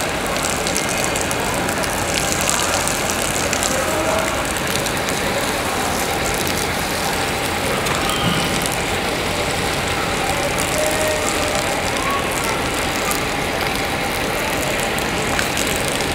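Steady hiss and splash of a thin water jet hitting wet concrete and a two-wheeled self-balancing scooter.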